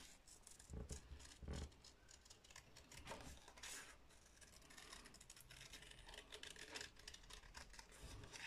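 Small scissors cutting a circle out of a paper card: a run of faint, short snips with the rustle of the card being turned in the hand.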